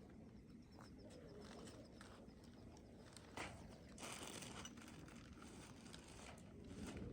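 Near silence with faint handling noises from unpacking the flat-pack coop's parts and packaging: light rustling and a few soft knocks.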